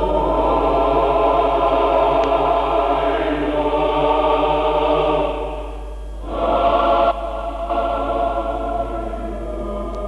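Soundtrack music of sustained choral chords, held steady, dipping a little past halfway, swelling back briefly, then continuing more softly.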